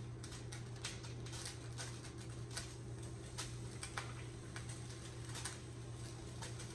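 Faint, irregular crackling and popping of hot frying oil in a skillet, several small pops a second, over a steady low hum.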